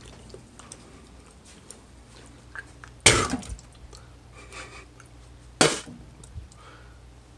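A person eating, with small mouth clicks and two short coughs, one about three seconds in and one about five and a half seconds in.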